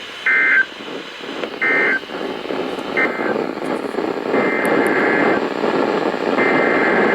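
NOAA Weather Radio SAME digital data bursts over radio static. Three short two-tone buzzing bursts mark the end of one alert. About four seconds in, longer bursts about a second each begin: the coded header of the next alert.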